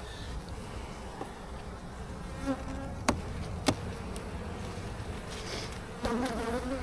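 Honeybees buzzing around an opened hive, a steady hum with a louder buzz coming and going near the end as a bee flies close. Two sharp clicks sound about three seconds in.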